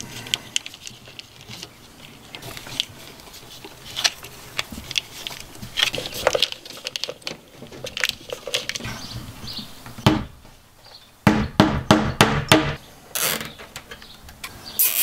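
Corrugated plastic split-loom tubing being handled as wires are pushed into it by hand: irregular crinkling, rustling and small clicks, louder and busier for a couple of seconds about two-thirds of the way through.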